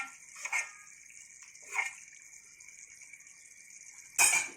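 Chicken and sorrel-leaf gravy simmering in a pot: a steady hiss with a few bubbling plops, the loudest near the end.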